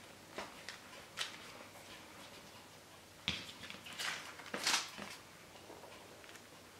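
Baking paper rustling and crinkling in a few short bursts, with one soft knock about three seconds in, as yeast dough is rolled up on it by hand.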